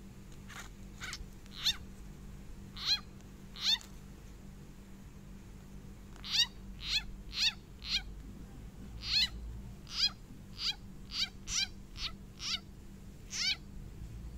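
A small frog (เขียด) squealing in distress while a snake eats it: short, high, squeaky 'aep aep' cries. They come about twice a second in irregular runs, with a pause of about two seconds a third of the way in.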